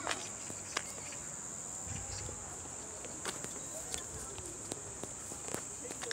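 Steady high-pitched chorus of crickets in the grass, with a few sharp clicks scattered through it.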